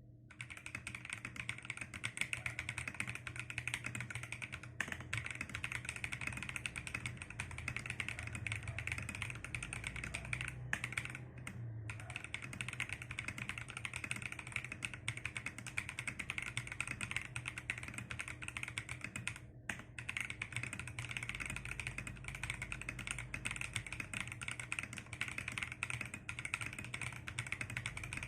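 Fast continuous typing on a mechanical keyboard fitted with Akko clear keycaps, a dense stream of key clicks with a few brief pauses, one of them about ten seconds in.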